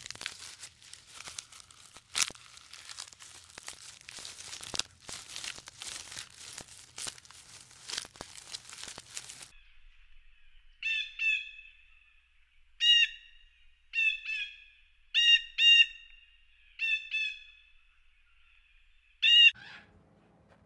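A bird giving about ten short, loud calls over the second half, singly and in quick pairs. Before them comes a stretch of irregular clicking and scratching noise.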